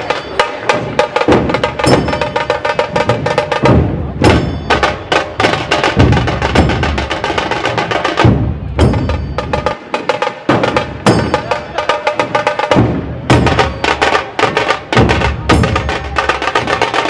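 Dhol tasha ensemble drumming: rapid, sharp tasha snare strokes over deep, heavy dhol beats in a fast, driving rhythm.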